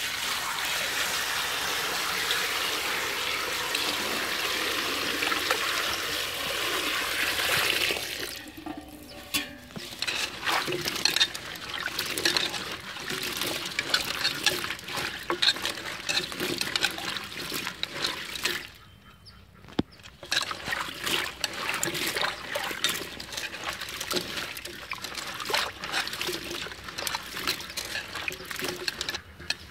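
A stream of water pours into a metal pot of small bitter gourds for about eight seconds. Then hands swish and rub the gourds in the water, splashing and sloshing irregularly, with a short pause about two-thirds of the way through.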